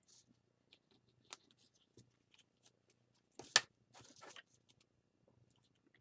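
Faint, scattered clicks and rustles of hands handling a braided cord loop and a small metal fitting, with one sharper click about three and a half seconds in followed by a brief rustle.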